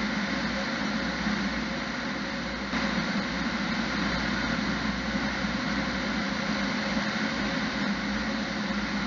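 Fire engine driving: steady engine and road noise heard from inside the cab.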